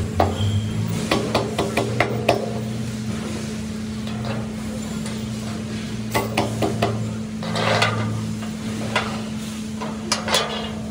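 Light clicks and clinks of aluminium rail profiles and small nuts and bolts being handled, in several short clusters, over a steady low hum.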